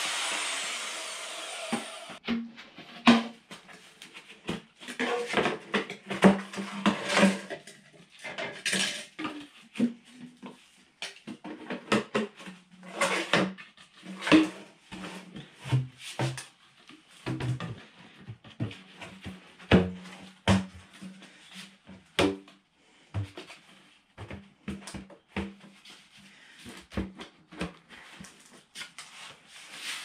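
A portable bandsaw cutting through PVC sewer pipe, stopping about two seconds in. Then many irregular knocks and clunks as plastic pipe lengths and 45-degree elbows are handled and pushed together, some with a short ringing tone.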